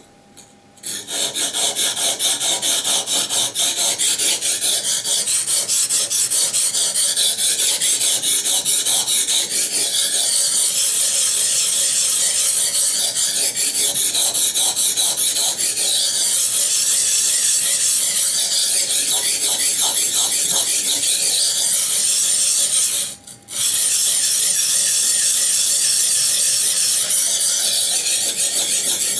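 ESEE 6 knife blade scraped back and forth on a water stone in rapid, steady strokes, reprofiling the edge. There is one short break about 23 seconds in.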